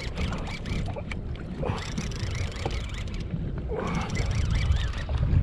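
Wind buffeting the microphone with a steady low rumble, and water slapping against a kayak hull in a light chop.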